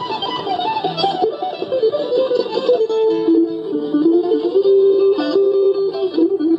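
Live folk music: an acoustic guitar strumming under a picked lead melody on a second string instrument, the melody stepping up and down with some held notes.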